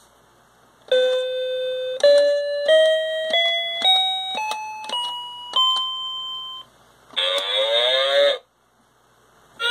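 Children's cow-shaped toy keyboard playing eight electronic tones, one key at a time, climbing a scale note by note. About two seconds later it plays a short recorded animal call with a wavering pitch.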